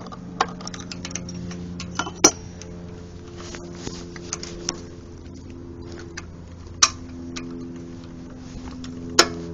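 Small metal engine parts clicking and clinking as a push rod and rocker arm are fitted back over a valve on a single-cylinder 7 hp overhead-valve engine. Scattered light clicks with four sharper ones, over a steady low hum.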